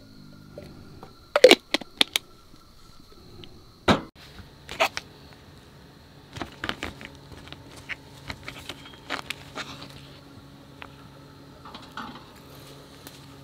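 Things being handled at a table: sharp clicks and knocks, several loud ones in the first few seconds and a scatter of lighter taps later. A faint steady high-pitched whine and a low hum run underneath.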